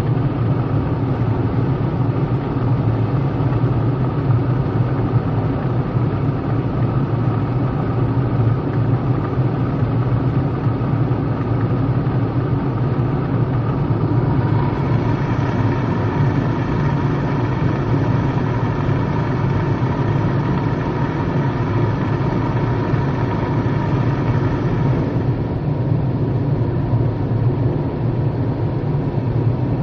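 Automatic tunnel car wash machinery running, heard from inside the car as a loud, steady rumble. About halfway through, a higher whine joins in for about ten seconds, then drops away.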